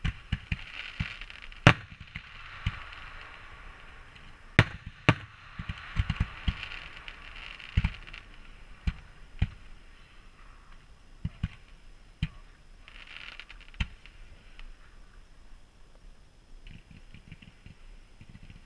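Ground-launched fireworks firing: irregular sharp bangs over a steady hiss. The loudest cracks come a little under two seconds in and twice close together around five seconds in.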